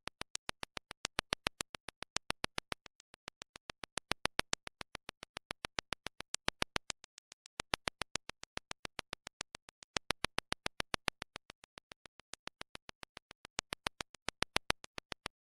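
Rapid, regular clicking, about six or seven sharp clicks a second, swelling and fading in loudness every second or so and cutting off abruptly near the end.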